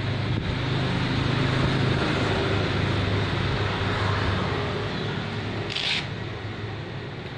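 Street traffic: a low, steady engine rumble that eases off in the last couple of seconds, with a brief hiss about six seconds in.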